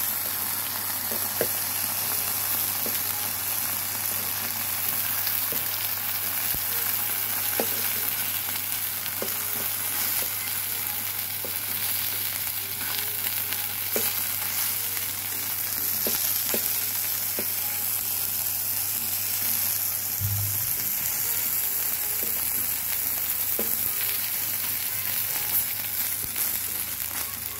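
Sausage slices, onion and breaded chicken katsu sizzling steadily in oil on an electric plancha griddle, with occasional small taps and scrapes of a spatula turning them.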